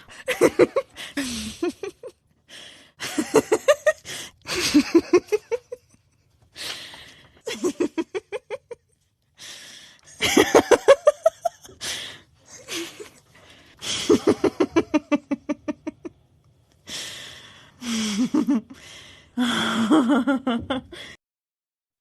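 Human laughter in a string of short separate bouts, about a dozen. Each bout is a quick run of ha-ha pulses, with brief gaps between bouts, and the voice pitch changes from one bout to the next.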